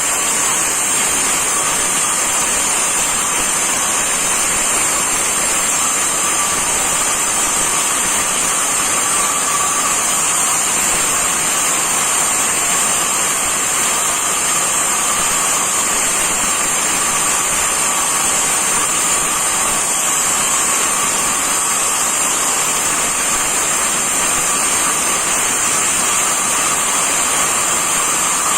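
Angle grinder running steadily and unbroken, a loud even rushing noise with a high whine.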